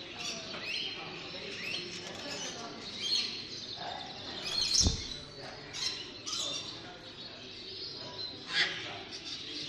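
Many caged birds chirping and calling at once in a busy chorus, with a sudden thump about five seconds in and a louder call near the end.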